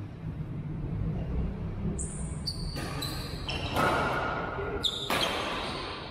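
Badminton rally: rackets hitting the shuttlecock about three times in the second half, the loudest hit about four seconds in. Each hit rings on in the hall's echo, over the thud of players' footsteps on the court.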